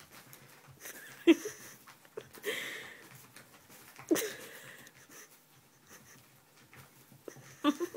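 Short breathy wheezes from a person laughing hard almost without voice, four bursts, the first about a second in and the loudest.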